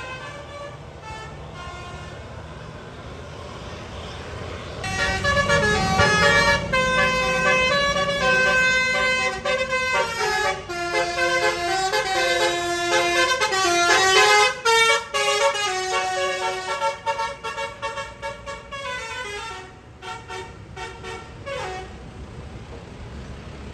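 A tour bus's basuri multi-tone musical air horn (telolet) playing a tune. Several notes sound together and change pitch in steps, loud from about five seconds in and dying away near the end, with the bus's engine rumble beneath.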